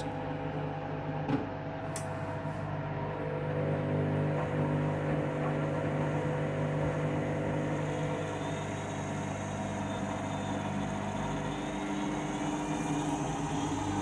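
Front-loading washing machine running, its motor giving a steady hum as the drum turns fast at the end of the main wash, with the load still heavy with suds. A few faint clicks come in the first few seconds.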